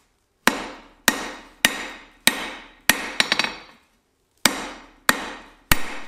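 A blacksmith's hammer striking red-hot steel on an anvil about once every 0.6 seconds, each blow ringing briefly. The square flat face is drawing down and flattening the bar stock for a pair of bolt-jaw tongs. Partway through comes a quick flurry of light taps, then a pause of under a second before the steady blows resume.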